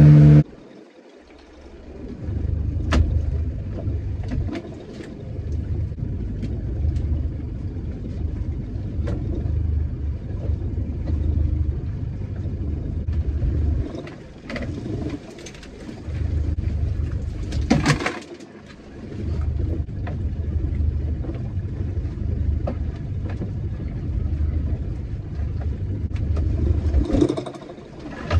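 Small fishing boat's engine running as it motors between strings of lobster pots: a steady low rumble that dips briefly a few times, with a few knocks.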